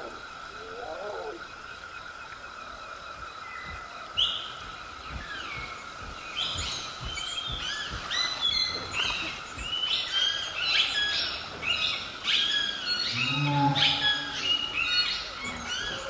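Jungle ambience: a steady high drone under a dense chorus of repeated bird chirps that builds from about six seconds in, with a low animal call near the end.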